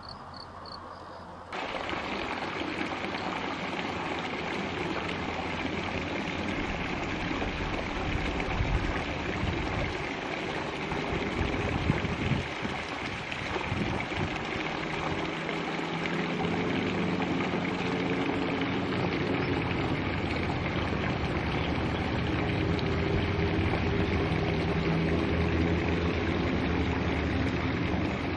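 Faint regular insect chirping, cut off under two seconds in by a steady rushing outdoor noise. A low steady hum joins from about halfway.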